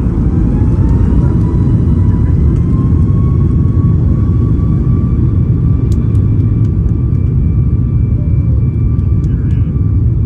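Boeing 737 MAX 8's CFM LEAP-1B turbofan engines spooling up to takeoff thrust, heard from inside the cabin: a rising whine that levels off after about three seconds over a deep, steady rumble.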